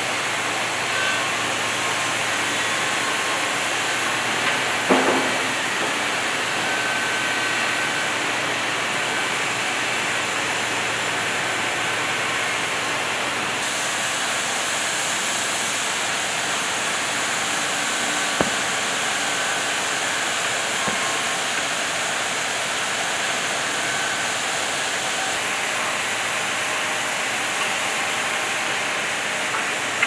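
Steady sawmill machinery noise, a constant hiss-like din that shifts in tone twice. A single sharp thud sounds about five seconds in.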